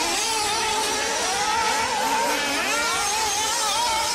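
Radio-controlled off-road cars running on a track, their high-pitched motors rising and falling in pitch as they rev and ease off.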